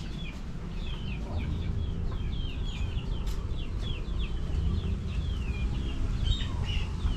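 A flock of chickens calling: many short, high-pitched calls overlapping without a break.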